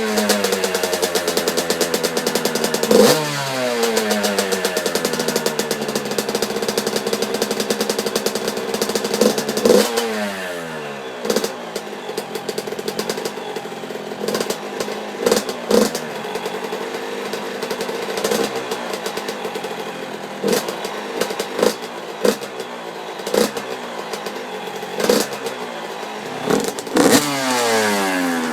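2003 Yamaha YZ85 single-cylinder two-stroke engine with an FMF Fatty expansion chamber and Power Core 2 silencer, revved up several times and falling back in pitch after each rev. Short, sharp throttle blips come in quick succession through the second half.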